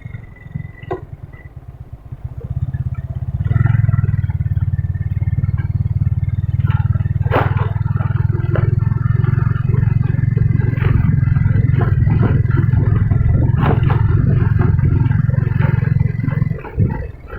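A motor vehicle's engine running steadily, with rattling and clattering knocks over it. It gets much louder about three and a half seconds in and drops away near the end.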